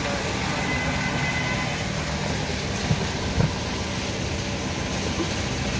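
Two short dull knocks about three seconds in as a lidded clay cooking pot is set down on a clay stove, over a steady low background noise.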